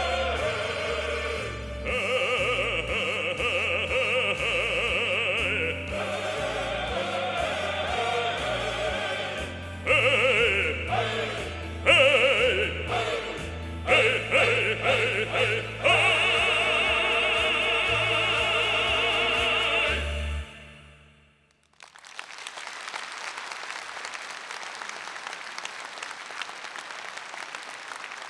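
Male choir singing with a male soloist over instrumental accompaniment, ending on a held final chord about twenty seconds in. Audience applause follows.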